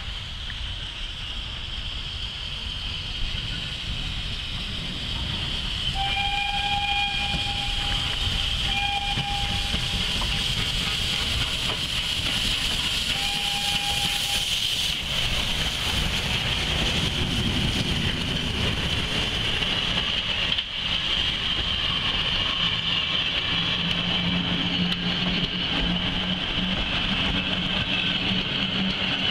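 Steam locomotive sounding its whistle in three blasts, the first the longest, as it approaches. It then passes close with a steady rushing of steam and running noise, and its passenger carriages roll by after it.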